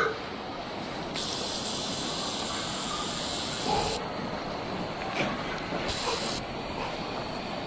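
Steady background noise with a high hiss. The hiss switches on abruptly about a second in, cuts off suddenly near the middle, and comes back briefly about six seconds in.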